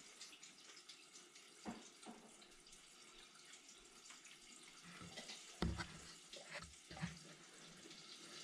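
Quiet kitchen with a faint steady hiss and a few short knocks and clicks from a food container and its lid being handled, the loudest knock a little past halfway.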